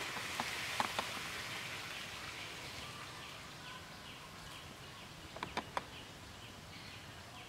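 Outdoor ambience: a steady hiss that fades over the first few seconds, with a few sharp clicks near the start and again about five and a half seconds in. From about three seconds in, short chirps repeat roughly twice a second.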